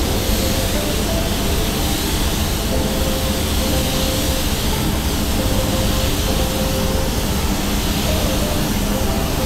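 Anest Iwata WS-400 Series 2 spray gun spraying metallic basecoat: a steady rush of compressed air, over a steady low rumble.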